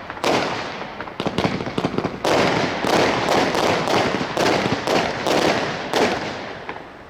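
Consumer fireworks going off: a rapid series of sharp shots and crackling bursts, which stops about six seconds in.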